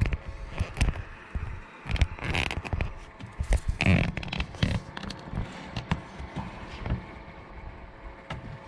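Irregular scraping, knocking and clicking from fishing rods and tackle being handled on a boat deck, busiest in the middle, over a faint steady hum.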